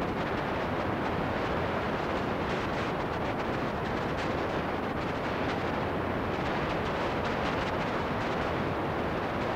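Steady static hiss from a VCR playing a blank stretch of videotape: an even, unchanging noise with faint crackle and no tone.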